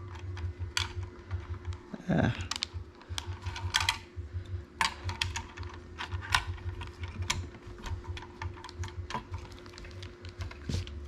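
Irregular light clicks and clatter of small hardware parts being handled, as of an AIO cooler's mounting bracket and screws being fitted to a motherboard, over a steady low hum.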